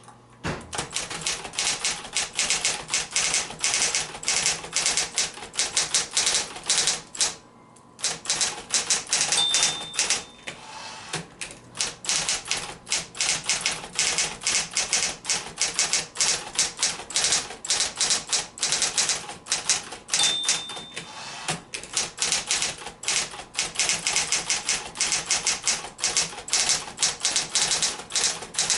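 1972 Smith-Corona Electra 120 electric portable typewriter being typed on: rapid, steady strings of keystrokes several a second, with a brief pause about seven seconds in. A short bell-like ding sounds twice.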